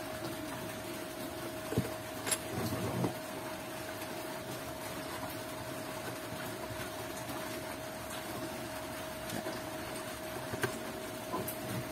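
Clicks and knocks of an MFJ-259 SWR analyzer being handled and a coax connector being fitted to its top socket, over a steady hum that holds one tone.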